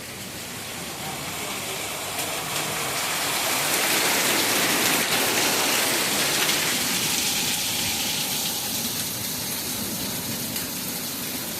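Heavy rain pouring down in a thunderstorm, growing heavier to a peak about four to six seconds in, then easing off somewhat.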